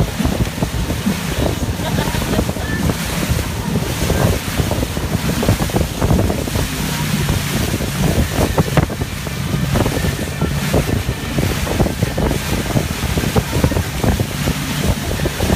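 Wind buffeting the microphone over the steady drone of a boat's motor running at towing speed, with the rush of its churning wake.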